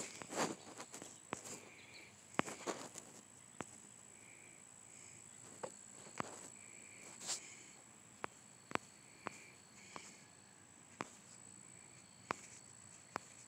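Faint, sharp clicks at irregular intervals, roughly one a second and bunched more closely in the first second, over a steady high-pitched whine.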